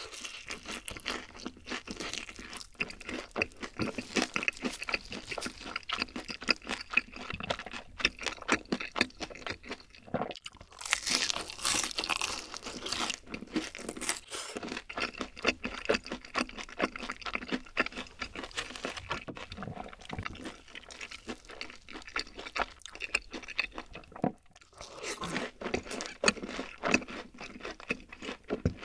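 Close-miked ASMR eating sounds of a person chewing mouthfuls of black bean sauce noodles and fried chicken: continuous irregular wet chewing and crunching, louder and noisier for a couple of seconds around the middle.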